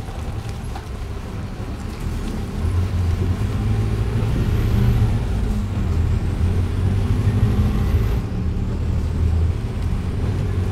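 Motor-vehicle engine rumble from road traffic, growing louder about two and a half seconds in and holding steady, with a faint high whine gliding up and down above it.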